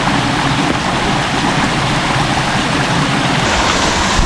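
Waterfall: falling water rushing steadily and loudly close by.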